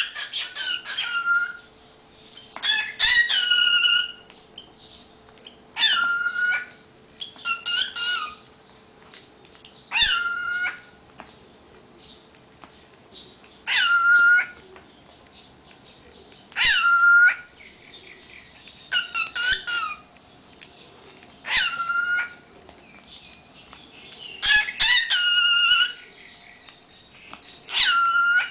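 A cockatiel calling and whistling in short, loud, repeated phrases, about ten of them, one every two to four seconds, each ending on a held, slightly falling note.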